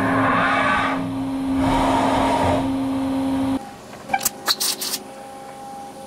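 CNC machining centre running: a steady spindle hum with two swells of hiss, cutting off abruptly about three and a half seconds in, followed by a quick run of sharp clicks and clanks.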